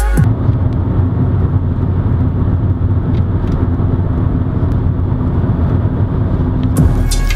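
Steady road and engine noise inside the cabin of a car moving at highway speed, a continuous low rumble.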